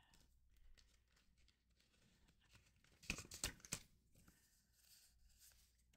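Mostly near silence, with faint rustling of paper banknotes and binder pages being handled, and a short cluster of soft clicks and rustles about three seconds in.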